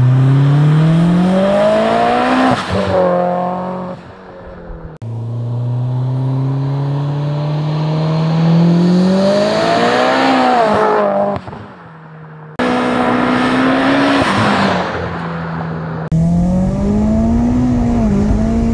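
Turbocharged Mitsubishi Lancer Ralliart's 4B11T four-cylinder accelerating hard, its pitch rising steadily through each pull. It then drops as the car passes and fades, in several runs joined by abrupt cuts. The last run is heard from inside the car while it accelerates.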